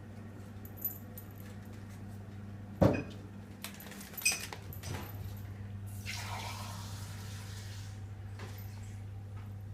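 A cat batting a paper ball around: a sharp knock about three seconds in, a lighter one a second or so later, then a short papery rustle, over a steady low hum.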